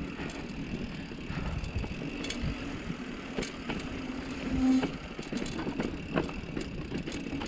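Mountain bike rolling downhill on a dusty, loose, rocky dirt trail: steady tyre noise broken by many short knocks and rattles as the bike rides over rocks.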